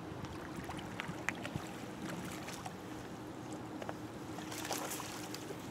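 Faint steady outdoor background noise with a low hum, and scattered light clicks and ticks through it.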